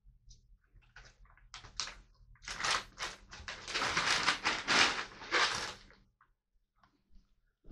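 Dry pet food rattling as it is poured, a dense clatter lasting about three seconds, with a few clicks and knocks before it, over a low steady hum.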